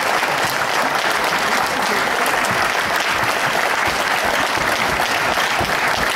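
A large audience clapping steadily together in sustained applause.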